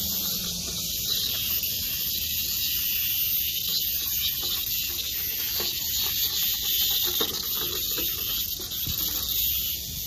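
Cicadas buzzing in the trees: a steady, high, hiss-like chorus that runs on without a break.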